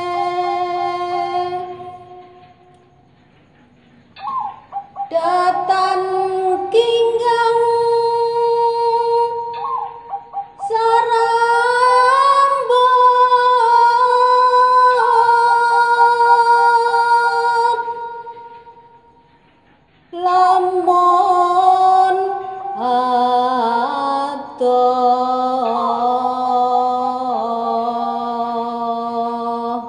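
A woman singing a slow Javanese song in long, drawn-out held notes, with little or no accompaniment. The singing breaks off twice for a couple of seconds, about three seconds in and again near eighteen seconds, and a lower held note sounds under it in the last third.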